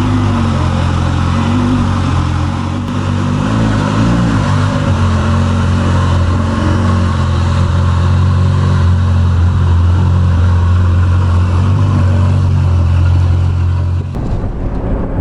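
Ferrari 488 Spider's twin-turbo V8 running while the car is driven, a steady low engine drone with little change in pitch. About a second before the end the drone drops away abruptly.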